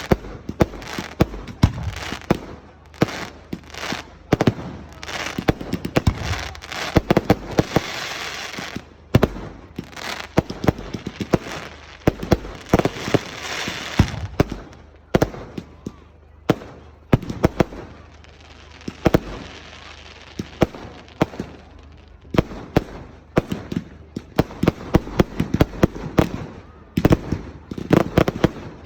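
Fireworks going off: a steady stream of sharp bangs, with long runs of dense crackling about a quarter and about halfway through, and a quick series of bangs near the end.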